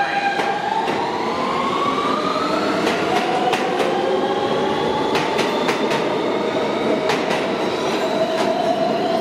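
R160 New York subway train accelerating out of a station, its traction motors whining and slowly rising in pitch. Wheels clack over rail joints as the cars roll past, with the clacks coming more often near the end.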